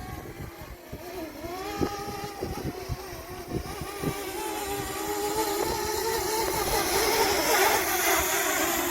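Hubsan Zino Mini Pro quadcopter's propellers buzzing as it comes in to land, growing steadily louder as it nears, with wind gusts buffeting the microphone.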